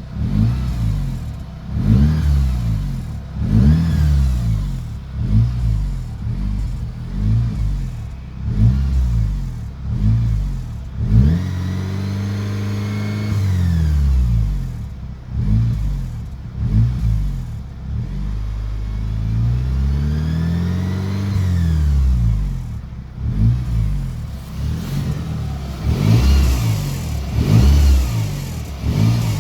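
Audi A5 2.0 TFSI turbocharged four-cylinder petrol engine being revved over and over: short blips of the throttle about every second and a half, with two longer climbs and drops in revs around the middle. The owner reports a strange noise from the engine as the revs fall.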